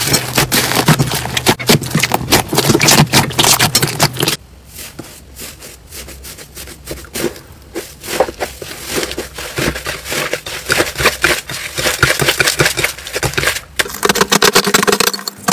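Hands squishing and kneading slime, with dense crackling and popping clicks. About four seconds in it changes to a quieter, sparser crackle as a crumbly yellow slime is pressed and broken apart, and the crackle builds up again near the end.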